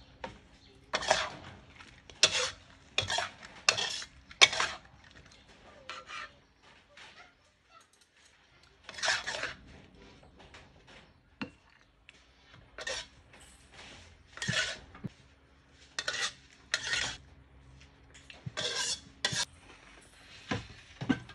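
Metal spatula scraping across a wok in short separate strokes, about one a second. There is a brief pause about a third of the way in, then the scrapes resume.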